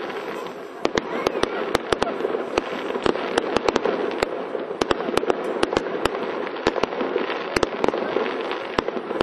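Fireworks display: a rapid, irregular string of sharp cracks and bangs from bursting aerial shells, several a second, over a steady rushing haze.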